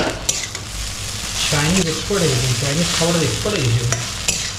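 Chow mein noodles stir-frying in a large metal wok: a steady sizzle, with a metal spatula scraping and clicking against the pan. A low, wavering voice-like tone comes and goes underneath.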